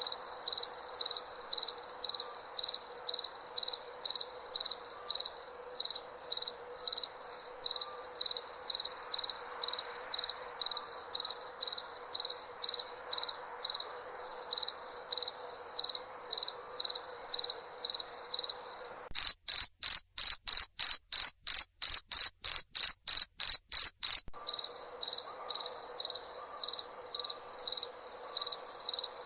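A cricket chirping in a steady, even rhythm, about three high chirps a second, over a faint background hiss. Past the middle, for about five seconds, the chirps come a little faster with clean silence between them and no hiss.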